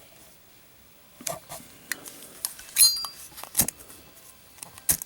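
Brass-cased Zippo lighter with a steel insert dropped and bouncing on a hard surface: a string of sharp metallic clinks and knocks, one about three seconds in ringing briefly.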